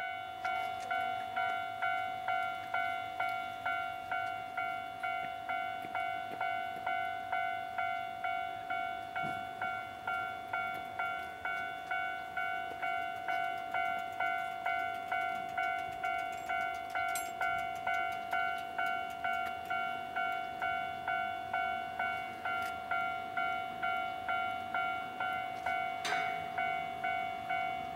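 Railway level-crossing alarm bell ringing steadily: the same bright tone struck over and over, about twice a second, each strike fading before the next.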